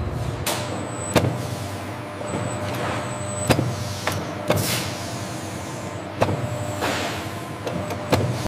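Bakery production-line machinery: a steady low hum with several sharp clicks and clanks spread through, and hissing whooshes in between.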